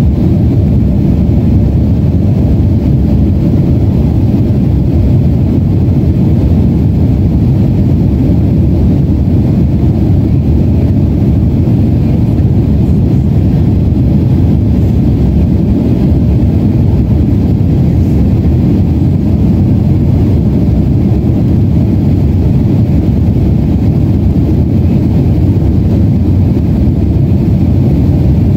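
Steady cabin noise of a Boeing 767-400ER airliner in flight: a constant low rumble of its GE CF6-80C2 jet engines and airflow heard inside the cabin.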